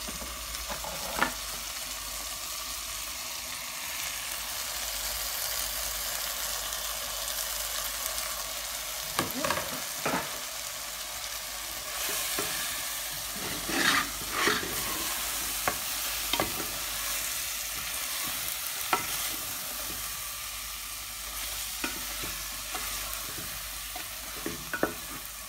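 Onion-tomato masala sizzling as it fries in an open stainless steel pressure cooker, stirred with a spatula. The spatula scrapes and knocks against the pot now and then.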